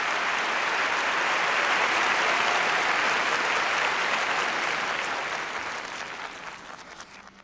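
Audience applause played backwards: a dense patter of clapping that holds steady, then fades away over the last two seconds.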